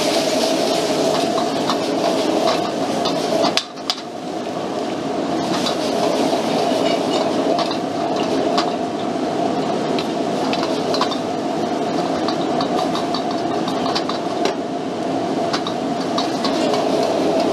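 Steady rushing of a high-powered gas wok burner, with a metal ladle repeatedly scraping and clinking against the wok as shrimp are stir-fried. The burner noise drops out briefly about four seconds in.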